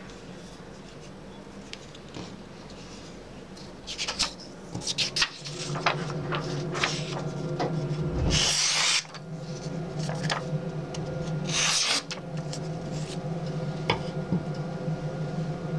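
Sheets of paper rustling and being sliced by a ladder-pattern Damascus steel knife blade, with two long loud slicing swishes about halfway through and again some three seconds later. Scattered handling clicks and crinkles come around them, over a steady low hum.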